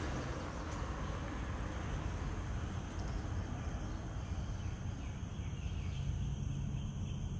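Steady high-pitched chorus of insects, several constant shrill tones held without a break, over a low even rumble.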